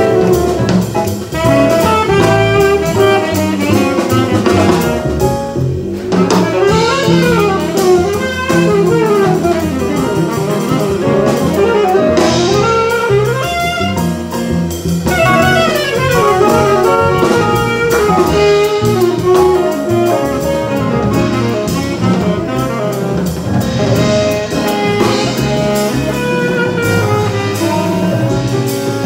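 Live jazz band playing an instrumental break: a saxophone solo with bending, running lines over keyboard, walking upright double bass and drum kit.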